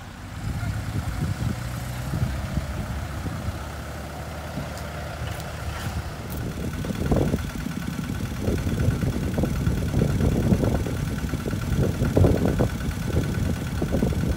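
Kubota RT140 walking tractor's single-cylinder diesel engine chugging as it pulls a trailer loaded with rice sacks, its beat getting louder and more uneven about halfway through.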